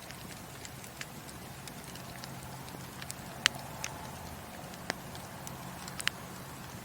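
Wood burning in a fireplace, crackling: irregular sharp pops over a steady low background, the loudest about three and a half seconds in.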